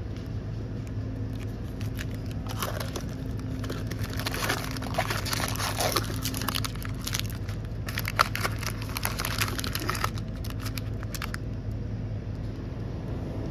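Plastic wrappers of PowerBar bars crinkling as a hand takes several bars off a shelf, in crackly bursts from about two and a half seconds in until about eleven seconds in, over a steady low hum.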